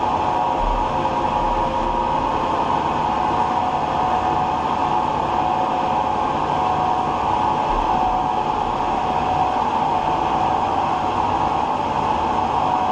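Large 36x144 engine lathe running at 112 RPM on a temporary electric motor and belt drive: a steady machine whine with several held tones over a rumble.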